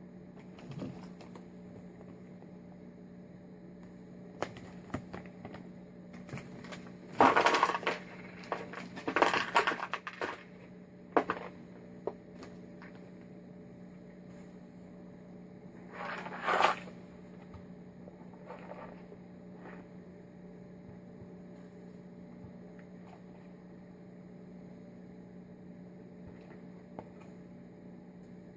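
Small parts and packets being handled and sorted on a workbench while looking out carburettor gaskets: scattered clinks and clicks, with bursts of rustling and clattering about seven and sixteen seconds in, over a steady low hum.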